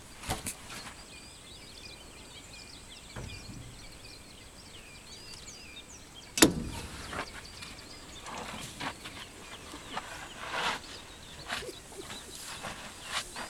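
A single sharp, loud knock about six seconds in as an African elephant bumps the open Land Rover, followed by softer knocks and scrapes as it brushes against the vehicle.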